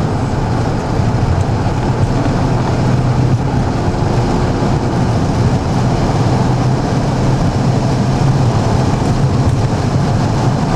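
Car driving at speed, heard from inside the cabin: steady road and engine noise with a constant low hum.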